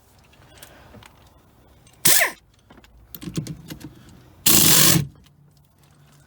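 3/8-inch impact wrench hammering on the 16 mm steering-wheel nut of a BMW E36: a short burst about two seconds in, then a louder, steady half-second burst that loosens the nut.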